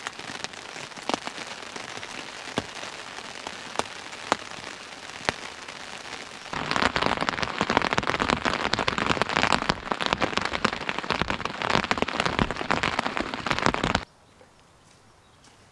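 Rain pattering on an MSR Elixir 1 tent's fly sheet, with single heavy drops ticking now and then. About six and a half seconds in it turns louder and denser, a close drumming heard from inside the tent under the fly, then cuts off abruptly to a faint outdoor background near the end.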